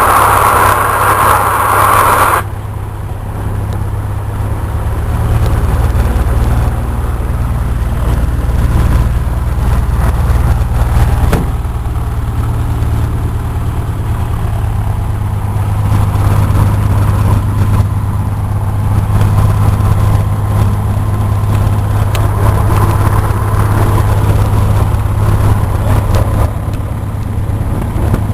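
Cessna 172's piston engine and propeller running at low power, a steady loud low drone. A hissing noise over it cuts off suddenly about two seconds in.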